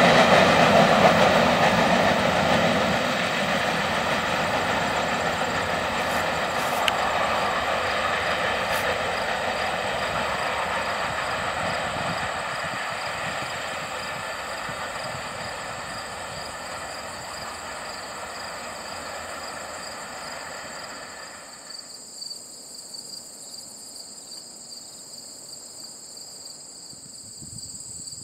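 Freight cars of a Union Pacific mixed freight train rolling away on the rails, their noise fading steadily as the train recedes until it drops away about three quarters of the way through. Insects trill steadily underneath, and are left alone at the end.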